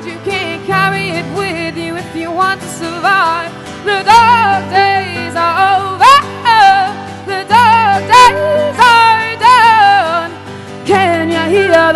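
A woman singing a live lead vocal, accompanied by harp and acoustic guitar.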